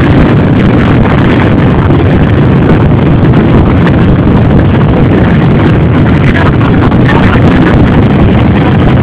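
Many off-road motorcycle engines and a quad bike's engine running together, a loud, steady mass of engine noise.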